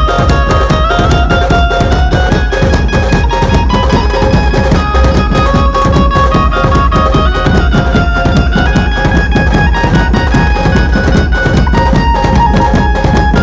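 Dhumal band music: large barrel drums beating a steady rhythm under a sustained, stepping melodic lead line.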